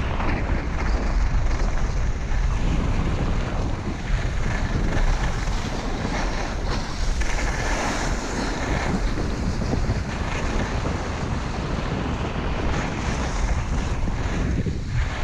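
Wind buffeting an action camera's microphone during a fast downhill run at about 30 to 50 km/h, mixed with the hiss of sliding over snow that swells and fades with the turns.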